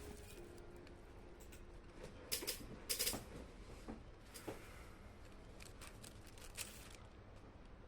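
Faint scattered clicks and rustles, the loudest a quick cluster about two to three seconds in, from a kitten moving and playing about.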